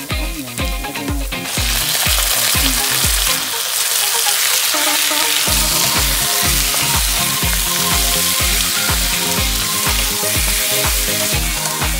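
Raw pork pieces frying in hot oil in a wok, sizzling loudly as they are stirred with a wooden spatula; the sizzle jumps up about a second and a half in. Background music with a steady beat plays underneath.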